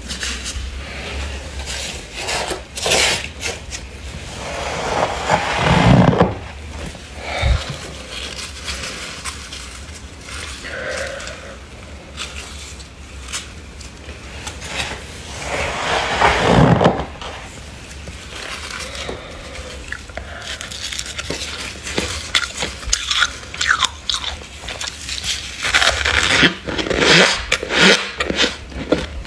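Soft, snowy freezer frost crunching as it is scraped and scooped out by a gloved hand and eaten. It comes in several loud spells of crunching, the biggest about a fifth of the way in and just past the middle, with a quick run of crackly crunches near the end, over a steady low hum.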